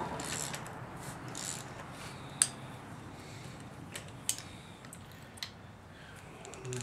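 A few sharp, isolated clicks and light taps, four or so spread out, over faint rustling.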